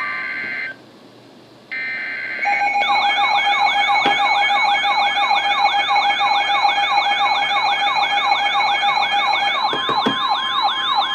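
Emergency Alert System tones on weather radio. Two short bursts of SAME header data tones come first. Then an alert alarm starts: a fast, siren-like warble of about four sweeps a second over steady tones, signalling that a new severe thunderstorm warning is coming.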